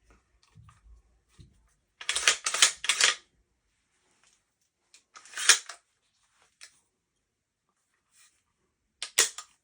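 Sharp clicks and rattles of shotgun parts being handled. There is a run of several clicks about two seconds in that lasts about a second, another burst about five and a half seconds in, and a last one near the end.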